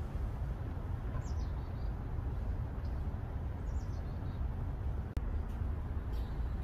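A few short, faint bird chirps, some falling in pitch, over a steady low outdoor rumble.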